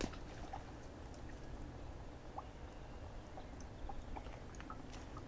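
Wind buffeting a muffled microphone as a steady low rumble, with scattered faint clicks and a sharp click right at the start.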